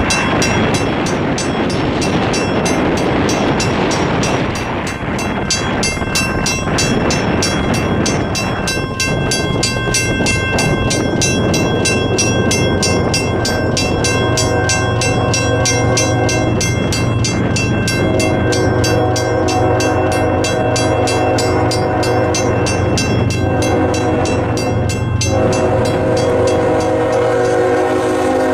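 Railroad crossing's Western Cullen Hayes mechanical bell ringing with quick, even strokes as the crossing signals activate. From about halfway, the approaching GE ES44AH diesel locomotive's engine rumbles closer and its horn sounds the grade-crossing pattern: long, long, short, long.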